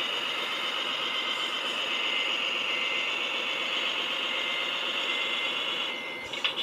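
RC model dump truck's electric drive motor and gearbox whining steadily as the truck pulls forward, easing off about six seconds in.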